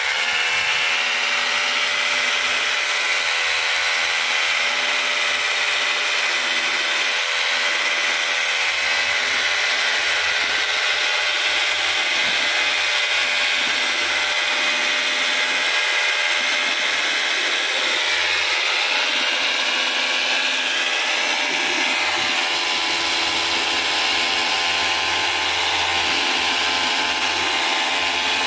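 An electric power tool's motor comes up to speed at the start, then runs steadily with a whine, its pitch dipping briefly about two-thirds of the way through.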